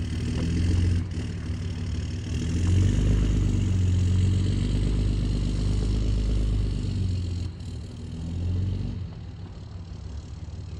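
2004 Dodge Ram 3500's 5.9-litre inline-six Cummins turbo-diesel pulling away down a gravel track, its engine note loudest for the first several seconds, then fading after about seven seconds as the truck moves off.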